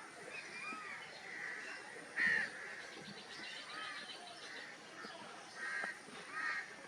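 Birds calling: many short chirps, with a few louder harsh calls, the loudest about two seconds in and two more near the end.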